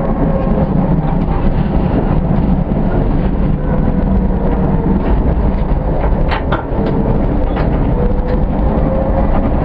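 Tatra KT8D5 articulated tram running along the track: a steady rumble with a faint motor whine that drifts in pitch, and two short wheel clacks over the rails about six and a half seconds in.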